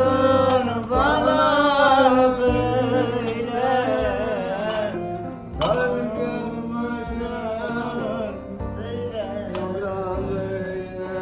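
Music: a song with a singing voice carrying a wavering, gliding melody over instrumental accompaniment.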